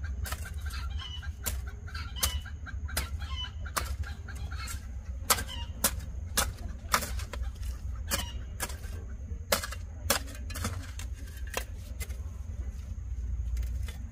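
Chickens clucking, with sharp irregular clicks and knocks scattered throughout and a steady low rumble underneath.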